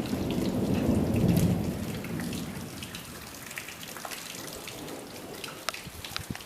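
Thunder rumbling low during steady rain, swelling over the first second and a half and then fading away. The rain keeps falling, with many single drops ticking throughout.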